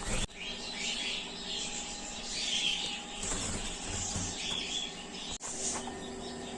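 Birds chirping: irregular short, high chirps over a faint steady background hum.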